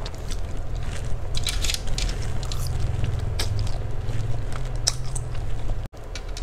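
Close-up eating sounds: a person chewing mouthfuls of fried Aceh noodles (mie Aceh goreng), with many short crisp clicks of mouth and fork, over a steady low hum. The sound drops out for an instant near the end.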